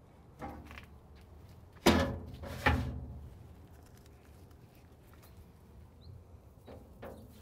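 Steel door and racks of an offset cabinet smoker creaking and clanking as ribs are loaded. There are two loud metal clanks about two and three seconds in, and lighter knocks near the end.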